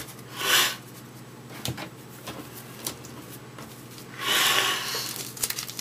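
Handling of baseball cards and a foil pack wrapper on a table: a short rustle about half a second in, a few faint taps, then a longer rustle about four seconds in, with small crinkling clicks as the next pack starts to be worked open near the end.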